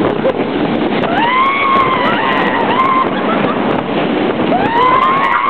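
Roller coaster riders screaming: two long, wavering screams, one starting about a second in and another near the end, over loud wind rush on the microphone from the moving train.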